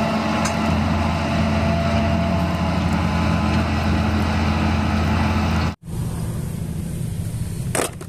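Large farm tractor's diesel engine running steadily under load while pulling a subsoiler through the ground. The sound cuts out for an instant about six seconds in, then carries on a little quieter.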